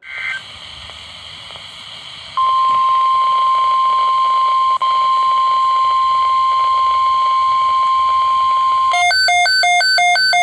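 NOAA Weather Radio over a hiss of radio static: the steady 1050 Hz warning alarm tone starts about two seconds in, signalling that a weather alert is about to be read. Near the end a rapid beeping that alternates between two pitches, about three or four times a second, joins in.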